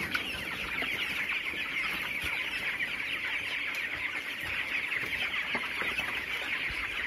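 A large flock of 22-day-old broiler chickens peeping and chirping together in a steady, dense chorus of many overlapping high calls.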